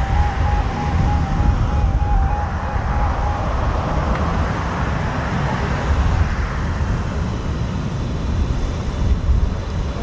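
Boeing 777F freighter on final approach, its twin GE90 turbofans a jet rush that swells to its loudest about halfway through and then fades, under heavy gusting wind on the microphone. A faint warbling tone sounds during the first three seconds or so.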